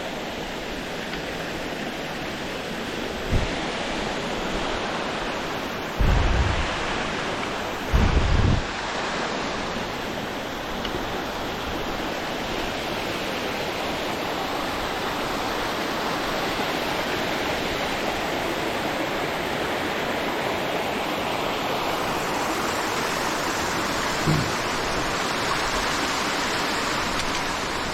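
Steady rushing of running water, like a mountain stream or small waterfall, with a few brief low thumps on the microphone.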